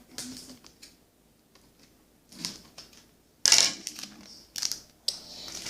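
Duct tape being pulled off the roll in several separate crackling rips, the loudest about three and a half seconds in, with short quiet gaps between.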